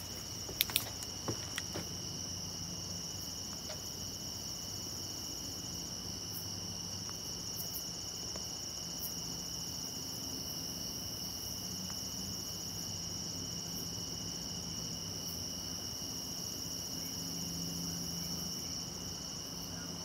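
Night insects chirring in a steady chorus: a continuous high trill at two pitches, unbroken throughout.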